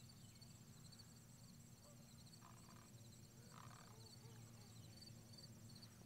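Faint marsh ambience: insects chirping in a steady, high-pitched pulsing rhythm over a low steady hum.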